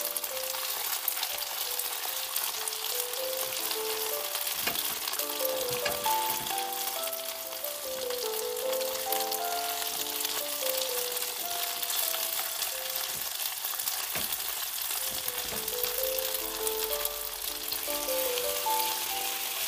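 Sugar-coated chicken wings sizzling steadily in an oiled nonstick frying pan as the sugar melts into caramel, with a few brief clicks of the tongs turning them. A light background-music melody plays over the frying.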